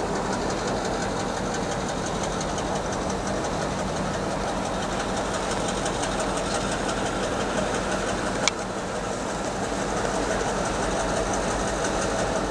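Diesel-electric locomotive engine running steadily as the locomotive rolls slowly toward the listener on snow-covered track, with a fast even beat in the upper register. A single sharp click comes about eight and a half seconds in.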